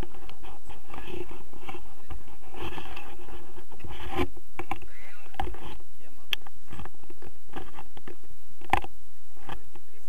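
People talking, with scraping, rubbing and sharp clicks from a hand-held camera pole being gripped and moved, over low rumbling on the microphone.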